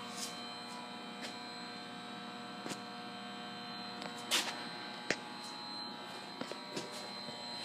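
Steady electrical hum made of several tones at once, with a few brief knocks and rustles over it. The loudest knock comes about halfway through, followed by a sharp click.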